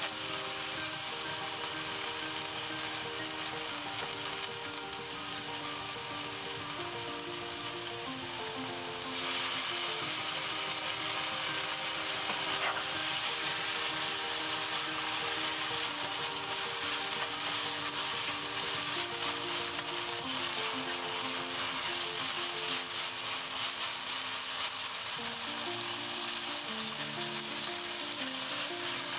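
Olive oil sizzling in a frying pan with sliced manganji peppers and garlic, stirred and scraped with tongs. About nine seconds in the sizzle gets louder as spaghetti is added and tossed in the oil. Gentle background music with a melody plays throughout.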